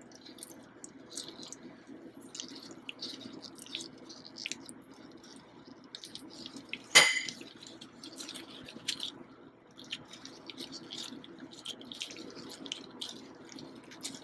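Scattered soft clicks and scrapes of utensils against a ceramic bowl, with the handling of sticky dough in disposable plastic gloves, as shredded chicken filling is spooned into a coxinha dough shell. One sharper clink comes about seven seconds in, over a faint steady hum.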